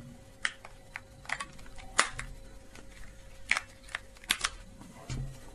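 Batteries being fitted into a TV remote control: a string of small, irregular plastic clicks and knocks from the battery compartment and handset, with one sharper click about two seconds in.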